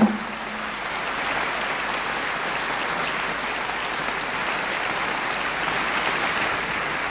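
A large audience applauding steadily: a crowd-applause sound effect in a radio drama, welcoming a star onto the stage.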